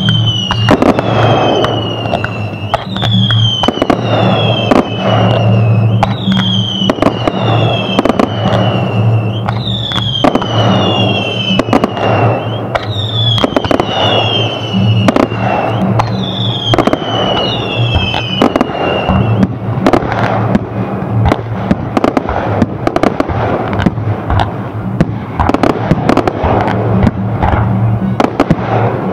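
Fireworks display: rapid bangs and crackling go on without a break. A falling whistle repeats about once a second until about two-thirds of the way through, over a low steady drone.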